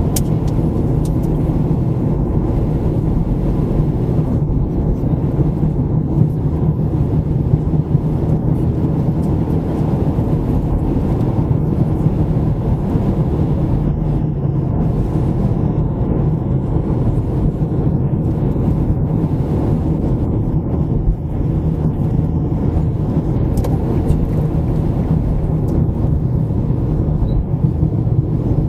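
A car driving: a steady low rumble of tyres and engine that stays even throughout, with no distinct events.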